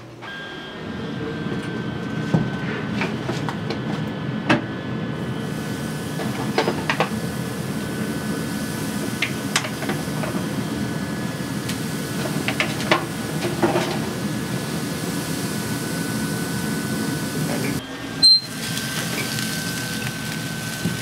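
Yoder pellet smoker running with a steady hum and a thin whine, while burger patties sizzle on its grate. A metal spatula clicks and scrapes against the grate from time to time.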